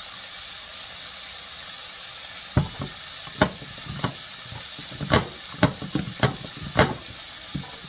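Chicken livers deep-frying in hot oil in an enamelled cast-iron Dutch oven, with a steady hissing sizzle. From about two and a half seconds in comes a run of about eight sharp clacks and knocks, louder than the sizzle.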